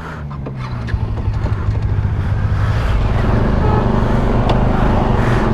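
Bajaj Dominar 400 motorcycle's single-cylinder engine running under way, with wind and road noise, growing louder over the first few seconds and then holding steady.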